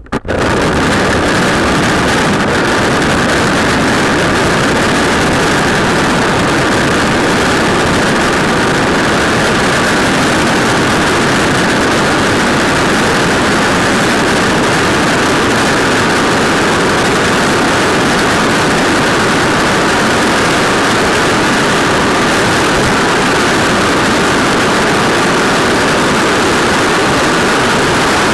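Longboard wheels rolling steadily over coarse asphalt, heard close up: a loud, constant road roar.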